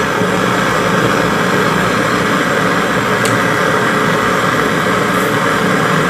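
Handheld gas-canister welding torch burning with a steady flame noise, heating the joint between an iron condenser tube and a copper compressor pipe for brazing.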